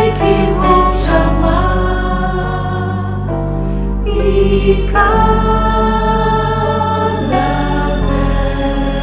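Virtual choir of men's and women's voices, recorded separately and mixed, singing a slow song together in harmony on long held notes, with steady low notes sustained beneath.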